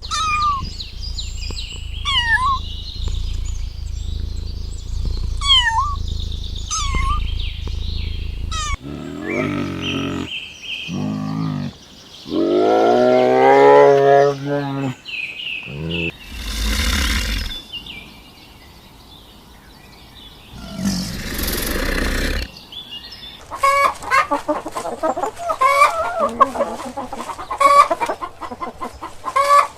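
Chickens: short falling chirps repeated about once a second, then a few longer animal calls and two noisy bursts, then hens clucking rapidly near the end.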